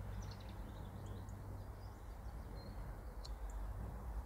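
Small birds chirping in short, scattered high calls over a steady low background rumble.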